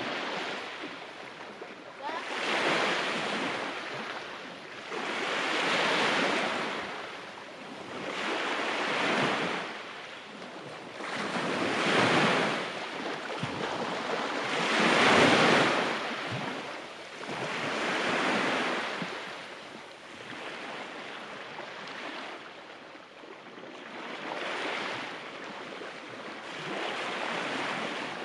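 Small sea waves breaking and washing up a fine-pebble beach, one swell of surf about every three seconds, the largest about halfway through.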